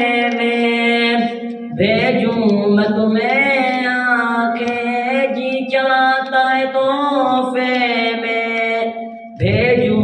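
A boy singing an Urdu naat solo and unaccompanied into a microphone, drawing out long, wavering held notes. New phrases begin about two seconds in and again near the end.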